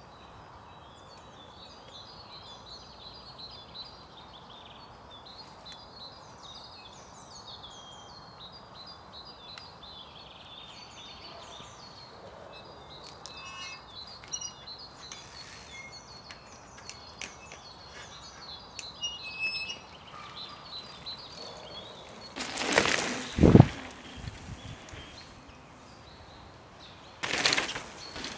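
Birds chirping and singing over a steady outdoor background. Near the end come two loud bursts of tyre noise as a mountain bike rides over the dirt jumps, the first with a heavy landing thump.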